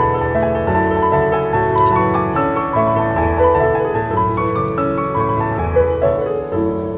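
Background music: a piano playing a gentle melody with chords.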